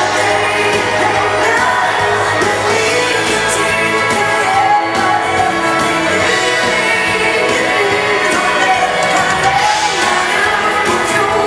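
Live Swedish dansband music with a lead singer: a bugg tune played for couple dancing, running steadily.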